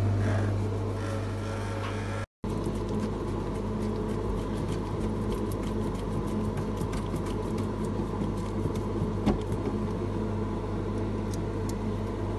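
General Electric refrigerator running with a steady low hum, back in operation after its failed defrost timer was replaced. The sound cuts out for an instant about two seconds in.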